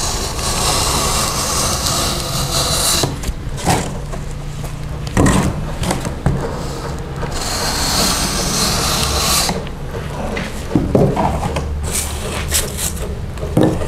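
A 45-degree ducting knife slicing through a polyurethane foam duct panel faced with aluminium foil: two long cutting strokes of a few seconds each, with a few knocks between and near the end as the panel is handled.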